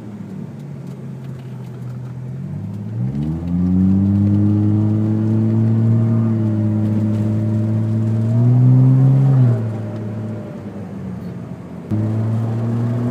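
Engine of an old methane-fuelled Volvo taxi, heard from inside the cabin: the engine note rises as the car pulls away, holds steady, climbs briefly and then drops away sharply about ten seconds in. It comes back abruptly at steady revs near the end.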